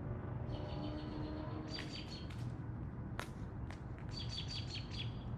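Outdoor ambience with a small bird chirping in two quick runs of short, high repeated notes, over a steady low rumble; a single sharp click sounds about three seconds in.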